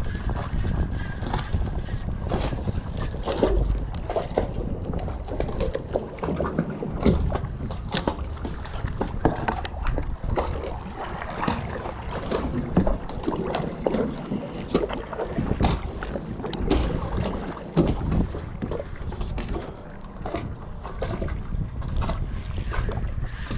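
Wind buffeting the microphone over choppy water that slaps and laps against the hull of a fishing kayak, with frequent sharp, irregular slaps.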